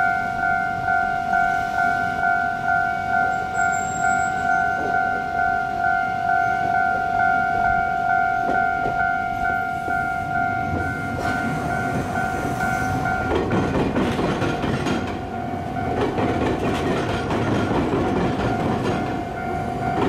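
Japanese level-crossing warning bell ringing in an even beat of about two strokes a second. From about 11 s an Iyotetsu Takahama Line suburban electric train rolls in, its wheels rumbling and clattering over the rail crossing; a couple of seconds later the bell's higher tone stops.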